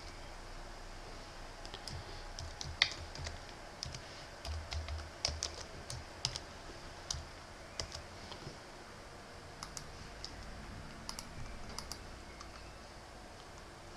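Typing on a computer keyboard: irregular keystrokes, with one sharper tap about three seconds in, thinning out to a few scattered clicks later on.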